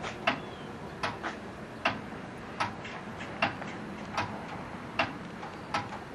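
Backyard railroad crossing signal clicking as its gate arm rises, a sharp tick about every three-quarters of a second, some of them doubled.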